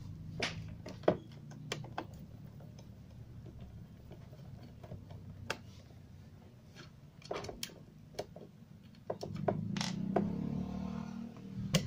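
Irregular clicks and light taps from handling a speaker's amplifier module: its metal front panel, cables and a screwdriver, while it is being taken apart. A faint low hum sits underneath, and near the end there is a louder stretch of rubbing and scraping.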